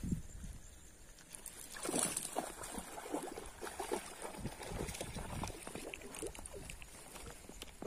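Hooked trout thrashing and splashing in shallow stream water, irregular sloshing splashes that start about two seconds in and run on in a quick uneven series.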